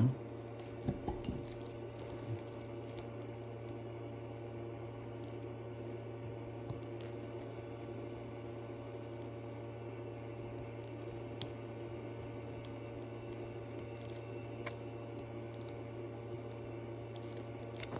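Steady low hum of room tone with a few faint, scattered clicks of small metal watchmaking tools handling a watch movement's bridge and screws.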